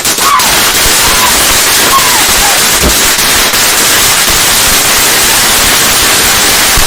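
A lit firework burning with a loud, steady hiss, not the popping kind, with a faint low thud about three seconds in.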